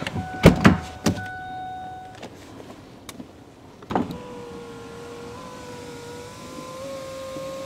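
A few clicks and knocks, then about four seconds in the 2007 Ford Fusion's electric power window motor starts running, a steady whine that rises slightly in pitch as the door window lowers, and stops near the end.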